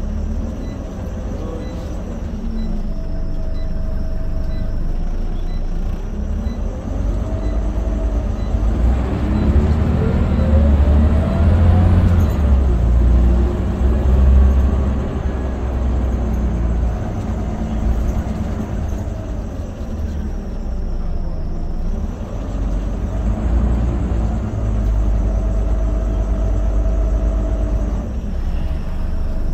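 Scania OmniCity bus heard from inside the saloon: the diesel engine running under load with road rumble, its note rising through the gears as the bus pulls away about eight to fourteen seconds in. A short steady whine comes in a few seconds in and again near the end.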